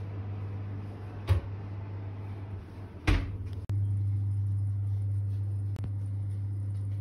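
Built-in oven door being pushed shut: a sharp click about a second in, then a heavier thump as it closes about three seconds in, over a steady low hum.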